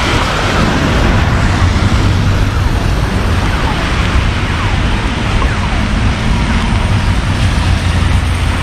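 Steady traffic noise on a rain-wet city street: a continuous rush of tyres and engines with a low engine hum underneath.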